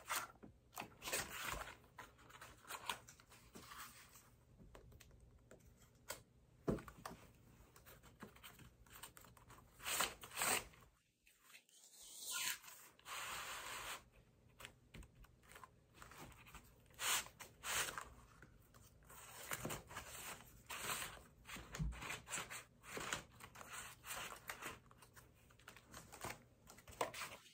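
Handling noise from a homemade cardboard-and-wood percussion rifle prop: scattered clicks, taps and scraping rustles as it is handled and worked through a loading drill.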